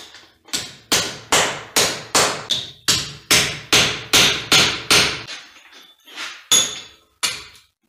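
Hammer striking a chisel held in vice grips to drive the upper kingpin out of a Case IH MX170 tractor's front-axle steering knuckle. Metal-on-metal blows land in a quick run of about two or three a second for roughly five seconds, then come as three spaced strikes near the end.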